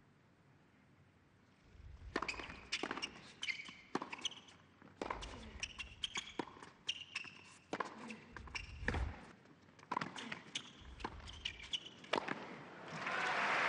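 Tennis rally on an indoor hard court: sharp racquet strikes and ball bounces, mixed with sneakers squeaking on the court surface. The rally starts a couple of seconds in and stops near the end, when crowd applause swells up in the hall.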